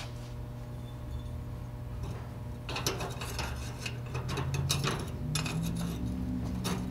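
Metal clinks and scrapes as an exhaust flange and its hardware are handled and fitted by hand onto a stainless exhaust down pipe, in scattered sharp clicks from about a third of the way in, over a steady low hum.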